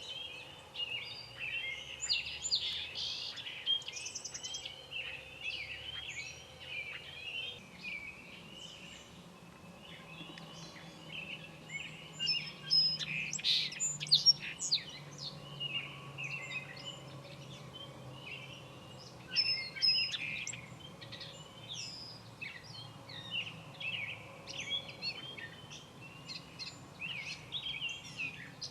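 Many small birds chirping and calling over one another in a dense, continuous chorus, with louder bursts of calls about halfway through and again a little later. A faint steady low hum sits underneath.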